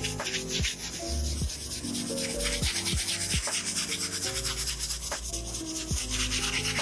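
Stiff-bristle brush scrubbing the sole of a sneaker in rapid back-and-forth strokes, with background music underneath.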